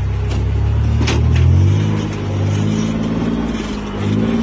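Engine of a modified 4x4 rock crawler revving under load as it climbs, rising to a peak about a second and a half in and then easing off before picking up again. A few sharp knocks come in the first second and a half.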